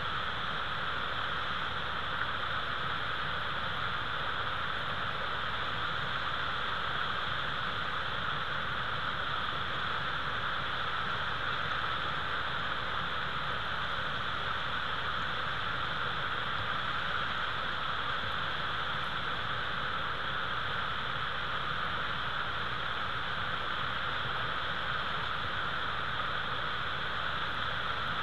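Steady, even hiss from a live nest-cam's outdoor microphone, with a faint low rumble underneath and no calls or distinct events.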